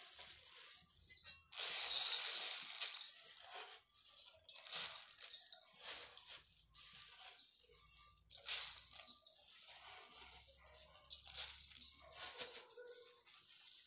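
Irregular crackly rustling and crunching: hands handling sugar-coated fried dough pieces in a steel bowl.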